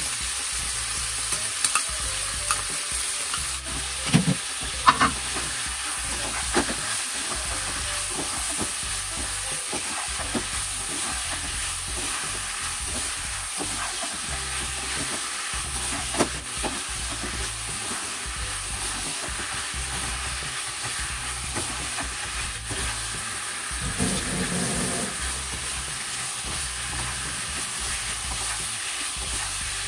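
Bitter melon stir-fry (goya champuru) sizzling steadily in a nonstick frying pan while it is stirred and tossed with a spatula, with scattered clicks and scrapes of the spatula against the pan; a sauce is poured in at the start.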